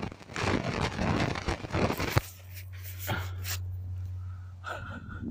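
Quick, repeated scraping strokes on metal, a van chassis being scrubbed down to shiny bare metal for an earth strap connection. The scraping stops abruptly about two seconds in, and a steady low hum carries on after it, with a couple of faint scrapes.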